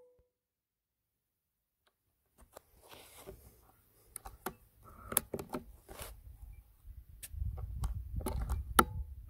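Diana 4.5 mm air rifle being handled, a run of small clicks and knocks, then a low wind rumble on the microphone in the last couple of seconds and one sharp crack with a short ringing tone near the end: the rifle firing.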